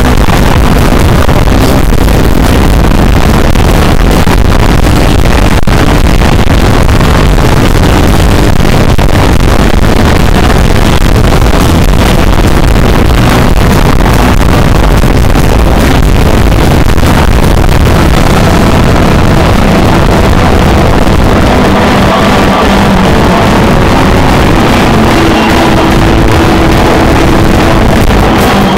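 Live band with electric bass, drums and a singer playing at full volume, overloading the recorder's microphone so the music comes through as a dense, distorted wall of sound. About two-thirds of the way in, sustained notes stand out more clearly above the din.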